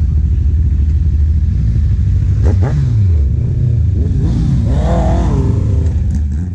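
Several motorcycle engines running at low speed, heard from the rider's seat. A rev falls away about three seconds in, and more rising and falling engine notes follow.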